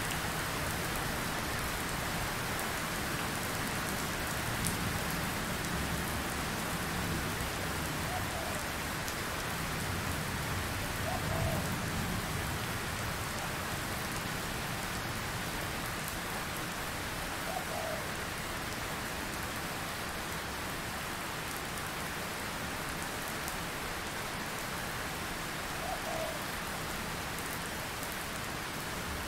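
Steady rain falling, an even hiss, with a few faint short plinks scattered through it.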